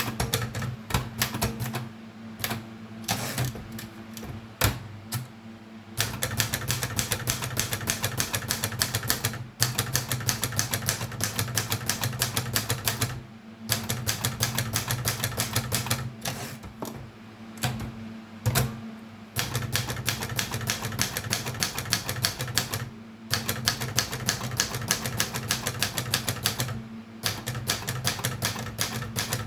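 Erika 32 typewriter being typed on: long runs of rapid key strikes with short pauses in between, over a steady low hum.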